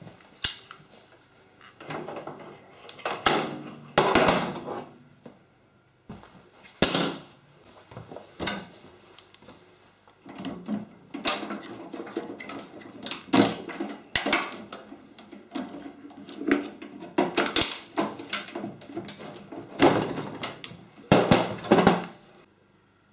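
Irregular knocks, clunks and rattles of hard objects being handled, some short and sharp, some longer scraping clatters, at uneven intervals.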